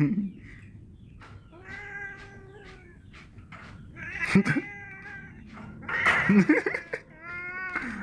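Tabby cat meowing and yowling, about four drawn-out cries each lasting under a second, with short pauses between them.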